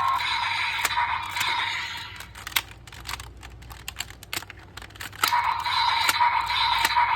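Plastic toy transformation belt being handled, with many sharp plastic clicks and ticks. A steady tinny hiss with a constant high tone plays for the first two seconds and again from about five seconds in.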